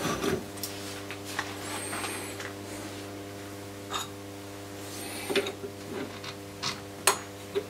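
A metal lathe's turning cut ends just after the start, leaving the lathe running with a steady hum. Scattered light clicks and knocks follow as the work is handled at the chuck, the loudest about seven seconds in.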